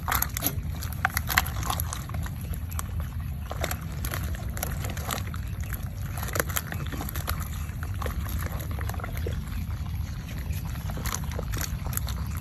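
Live eels writhing in a woven basket as they are handled: wet, slimy squelching and slithering with scattered small clicks and taps, over a steady low rumble.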